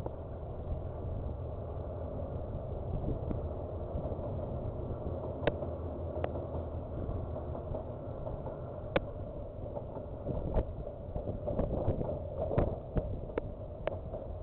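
KiwiRail diesel train passing: a steady low rumble, with sharp clicks and clanks from about five seconds in that come thicker near the end.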